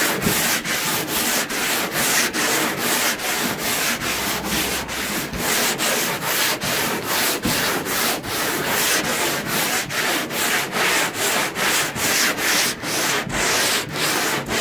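Hand-pushed wooden longboard sander with coarse 40-grit self-adhesive sandpaper rasping over a fresh skim coat on a boat hull, in quick, even back-and-forth strokes of about three a second. The coarse paper is cutting through the skim coat fast.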